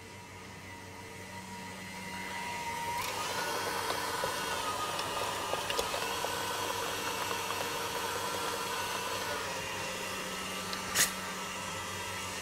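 KitchenAid stand mixer running steadily, beating cold pastry cream until it turns creamy. Its motor hum builds up and rises in pitch about three seconds in as it speeds up. A single sharp clank comes near the end.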